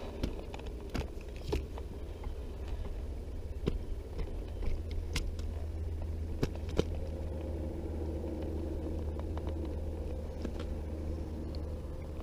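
A small boat motor running steadily with a low hum, steering the boat. Scattered sharp clicks and knocks of fishing tackle being handled.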